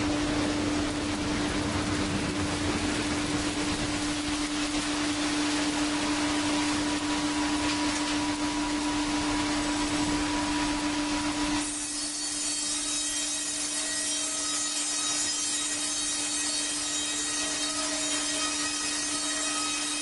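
Horizontal band sawmill running with its blade cutting through a log: a steady sawing noise over a strong low hum. About twelve seconds in, the sound changes abruptly; the hum stops and a set of thin high whining tones takes over.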